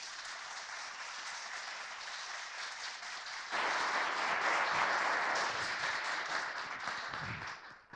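Audience applauding, the clapping growing louder about three and a half seconds in and dying away near the end.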